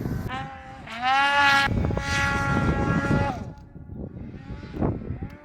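Snowmobile engines revving in deep snow: a rev rises sharply about a second in, holds high for about a second, then drops away, with a few shorter, quieter blips of throttle near the end.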